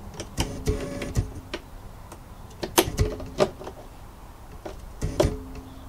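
Scattered plastic clicks and knocks of test leads and clips being handled and fitted to a consumer unit's terminals. A low steady tone sounds in short stretches several times, and the loudest click comes about three seconds in.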